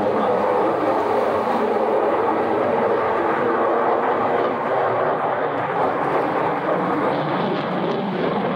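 Jet noise from an F-35 Lightning II's single turbofan engine as the fighter flies overhead, a steady rushing sound at an even level.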